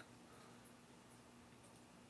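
Near silence: faint background room tone with a low steady hum.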